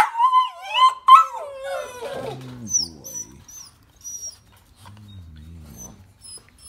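Young puppies whining: loud, high, wavering whimpers for about the first two seconds, then fading to a few faint high squeaks.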